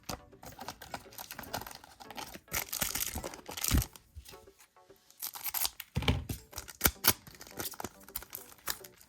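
Foil trading-card booster pack crinkling and being torn open, in noisy stretches of rustling and ripping.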